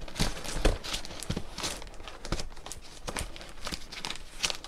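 Flexible ventilation ducting being worked onto the plastic outlet spigot of a positive input ventilation unit. Irregular rustling and crinkling of the duct, with scattered light knocks and taps against the plastic housing.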